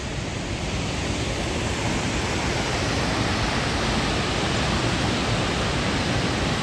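Waterfall with a heavy flow of water pouring over it: a steady, loud rushing roar.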